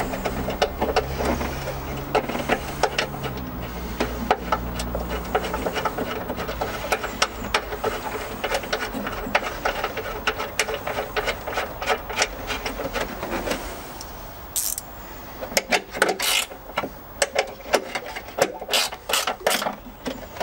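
Hand ratchet clicking quickly as the battery's main terminal and hold-down brace nuts are tightened, giving way after about 14 s to scattered louder clicks and knocks of tools and metal parts being handled.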